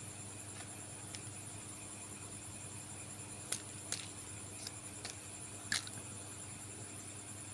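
Hands handling plastic candy packaging and small candies, giving a few sharp clicks and ticks between about three and a half and six seconds in. Under them is a steady low hum and a high pulsing whine.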